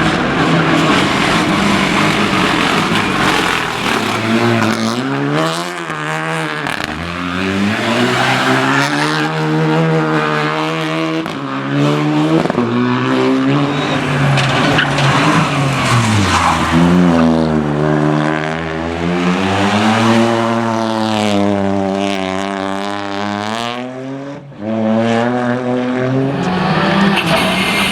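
Rally car engine revving hard, its pitch climbing and dropping again and again as the throttle opens and lifts through gear changes. It briefly drops away about three-quarters through, then comes back loud.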